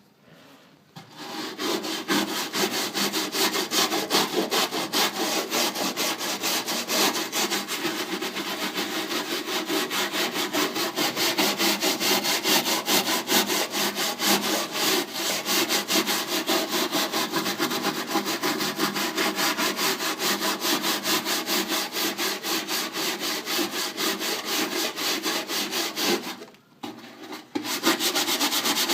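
Fast back-and-forth scrubbing of old rust spots on an appliance's metal surface that have been coated with anti-rust gel, in quick, even strokes. It stops briefly near the end, then starts again.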